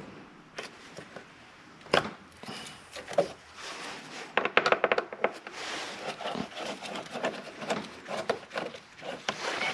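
Hoses and their clamps and plastic fittings being worked off an engine by hand: scattered clicks, knocks and rubbing, with a sharp knock about two seconds in and a quick run of clicks about halfway.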